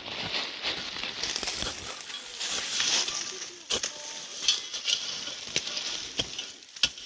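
Steel shovel being driven into the forest floor, crunching through dry fallen leaves and soil, with several sharp strikes in the second half.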